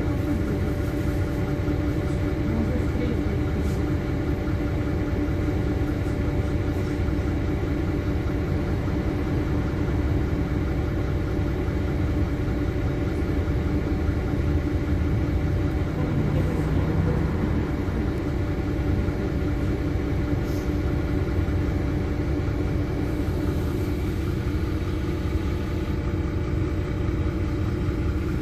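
LiAZ-5292.21 city bus's diesel engine idling steadily, an even low hum heard from inside the passenger cabin while the bus stands still in traffic.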